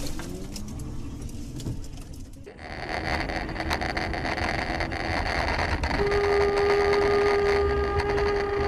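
Road and engine noise inside a moving car, then a car horn held in one steady blast for about three seconds, starting about six seconds in, at a car sliding across the road ahead.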